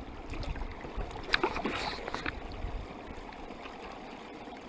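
Lake water lapping with wind rumbling on the microphone. A few short clicks and splashes come between about one and two and a half seconds in.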